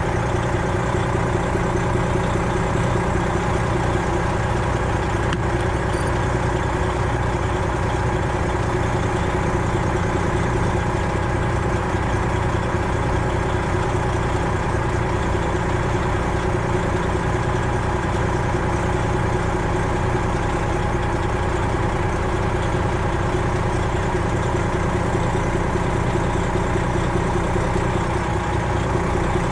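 Semi truck's Detroit Diesel 12.7-litre engine running steadily, with no change in pitch.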